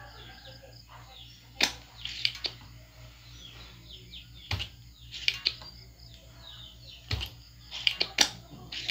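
Sharp clicks and knocks, about nine spread irregularly, from work on a CRT TV circuit board while its memory IC is being desoldered. Birds chirp in the background over a steady low hum.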